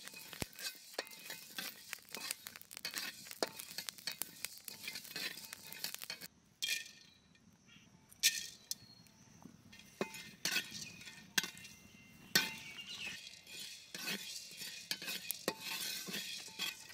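Flat metal spatula scraping and clinking against a black iron karahi as whole spices are dry-roasted and stirred, the seeds rattling on the iron. It goes quiet for a moment about six seconds in, then sharp clinks and scraping pick up again as cardamom and cloves go into the pan.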